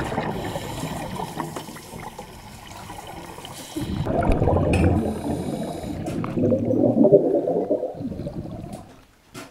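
Scuba diver's exhaled bubbles gurgling and rushing from the regulator, heard underwater: one bubbling spell fading over the first few seconds, then a louder spell of about four seconds that stops about a second before the end.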